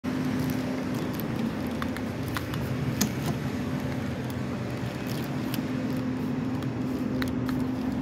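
Steady low hum of vehicle traffic holding one constant pitch, with a few light clicks scattered over it.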